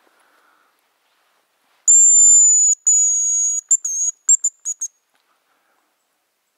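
Hazel grouse decoy whistle blown close by, imitating the bird's call: two long, thin, very high whistles, then a wavering note and a quick run of short notes.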